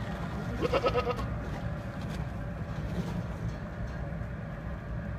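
A Boer goat gives one short, quavering bleat about half a second in, over a steady low hum.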